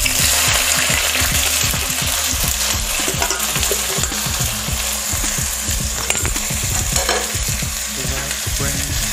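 Sliced onions deep-frying in hot mustard oil in a kadai, with a steady sizzle over a high flame.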